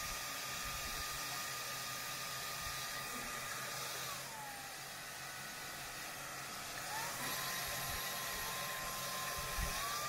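Kyvol V20 cordless stick vacuum running, a steady rush of air with a high motor whine, not so loud. About four seconds in the whine slides down and the sound gets a little quieter as the motor drops to a lower speed setting, then it climbs back up about seven seconds in.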